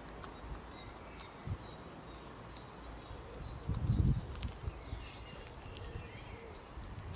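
Outdoor ambience with small birds chirping and calling in the background, many short high chirps. A brief low rumble comes about four seconds in.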